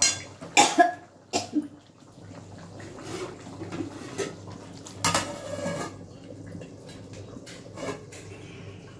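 Metal ladle and steel cookware clattering: a cluster of sharp clinks and knocks in the first second and a half as the ladle is set in the curry-filled kadai, a short noisy burst about five seconds in, and another knock near the end as a lid goes onto the pan.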